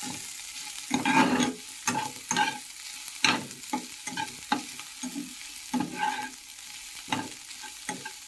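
A spatula stirring and scraping onion, ginger and garlic frying in oil in a kadhai: a steady sizzle under irregular scrapes and knocks of the spatula against the pan, about two a second.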